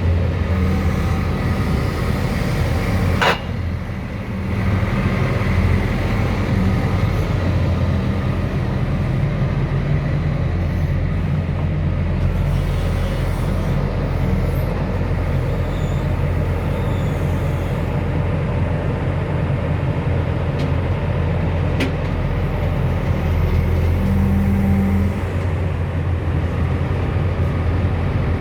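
JCB 220X tracked excavator's diesel engine running steadily, with a sharp knock about three seconds in and a brief rise in engine note near the end.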